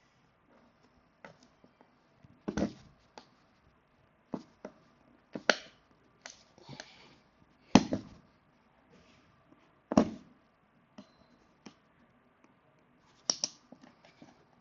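Staples being pried out of an upholstered auditorium seat back with a hand tool: irregular sharp clicks and snaps a second or two apart, with brief rustles of fabric in between.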